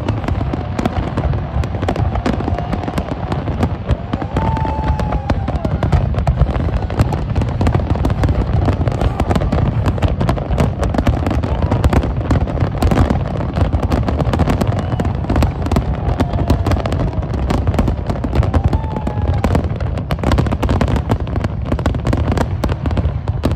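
Aerial fireworks display at full barrage: a dense, unbroken string of shell bursts and crackling over a steady low rumble.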